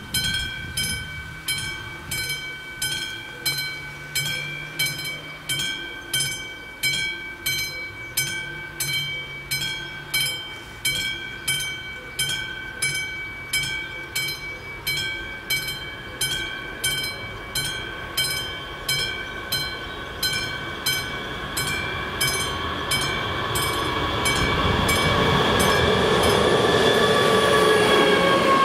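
Level-crossing bell of the classic type ringing in regular, evenly spaced strokes. From about two-thirds of the way through, an approaching train grows louder. Near the end a class 757 diesel locomotive runs over the crossing, and its engine and wheel noise overwhelms the bell.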